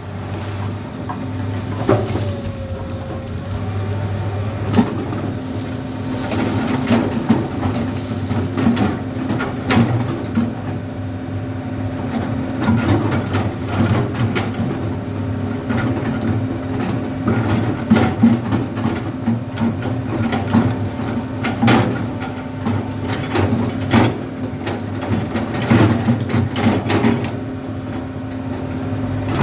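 Komatsu PC200 excavator's diesel engine running steadily under load, with irregular knocks and clatter from the bucket digging gravel.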